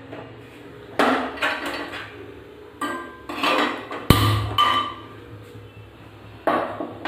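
Metal pots and utensils being handled on a stove: a series of irregular clanks and knocks, some ringing briefly, the loudest about four seconds in with a dull thud.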